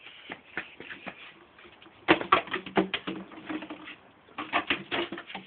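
A poodle chewing and crushing an empty bottle, making a run of irregular crackles and clicks. They come in bursts, loudest about two seconds in and again near the end.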